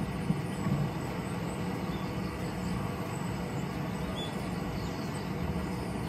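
Steady low rumble and hiss of hushed background ambience on a golf tee, with a few faint light ticks in the first second.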